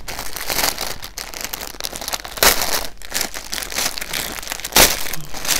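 Clothing packaging being handled and opened by hand, crinkling and rustling, with two louder crackles, one about two and a half seconds in and one near five seconds.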